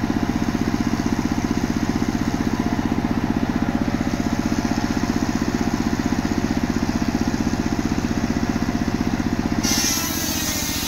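Engine of a mobile circular sawmill running steadily with a fast, even pulse. Near the end the sound changes abruptly, with a brighter hiss added over a weaker pulse.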